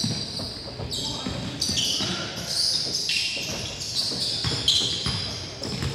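Basketball game on a hardwood gym floor: a ball bouncing as it is dribbled, and sneakers squeaking in short high-pitched chirps as players cut and stop.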